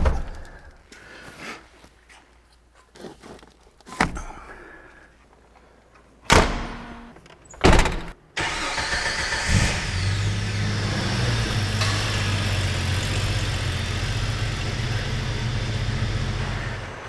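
A few heavy thunks of car doors shutting, then, from about eight seconds in, a Jeep's engine running steadily.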